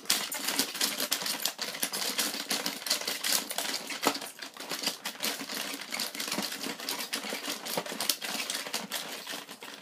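Rock 'Em Sock 'Em Robots toy being played: a rapid, uneven clatter of plastic clicks and clacks as the handle buttons are pumped and the robots' arms punch.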